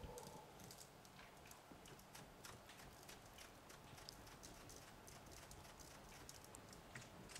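Seasoning shaken and tapped out of a plastic shaker bottle over a rack of lamb on a foil-lined tray: faint, irregular light ticks of the shaker and falling granules.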